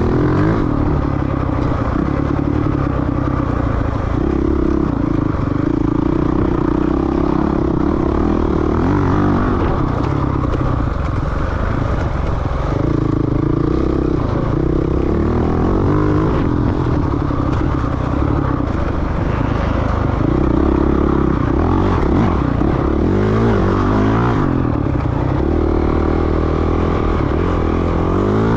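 Off-road dirt bike engine under load, its revs rising and falling every few seconds as the throttle is worked, with rattling from the bike over rough ground.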